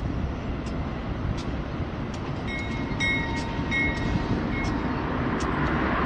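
Norfolk Southern freight train rolling slowly through a rail yard: a steady rumble that grows louder as it approaches, with short high-pitched tones coming and going in the second half.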